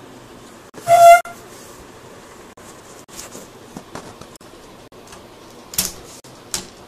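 A short, loud horn-like tone about a second in, the loudest sound. After it come scattered light clicks and taps from handling the laptop's small screws and screen parts.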